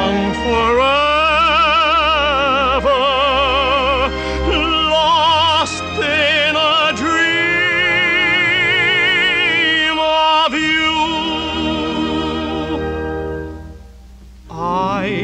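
Operatic tenor singing long held notes with wide vibrato over an orchestral accompaniment. Near the end the music drops away for about a second, then comes back in.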